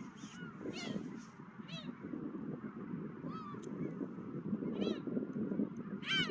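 Seagulls giving short, scattered calls, about half a dozen, the loudest near the end, over a steady rush of wind.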